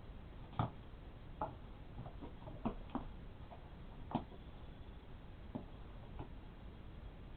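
Irregular light clicks and taps, about ten scattered over several seconds, the sharpest about half a second in and another about four seconds in.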